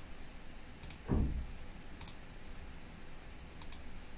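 Four computer mouse clicks, spaced about a second apart, with a short low thud about a second in.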